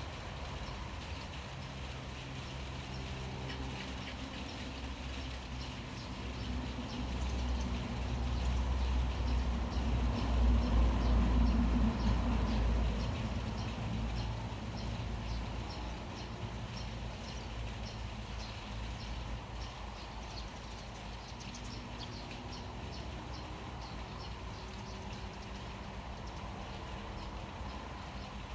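A motor vehicle's low engine rumble that swells to its loudest about midway and then fades, as if passing by, with short high chirps repeating about twice a second through the latter part.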